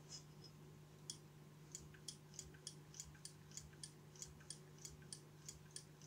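Faint, even plastic clicks, about three a second, starting about a second in: a VW Golf 5 tailgate release button assembly being pressed over and over by hand, its repaired switch pushrod clicking back and forth.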